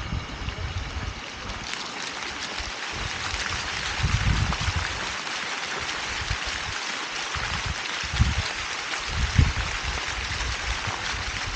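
Fountain water splashing and running in a steady rush, growing fuller about two seconds in, with irregular low rumbles of wind buffeting the microphone.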